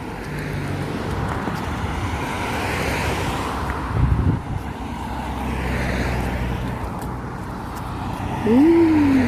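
Road traffic: steady car engine and tyre noise that swells about three seconds in and again about six seconds in, with a short low thump near the middle.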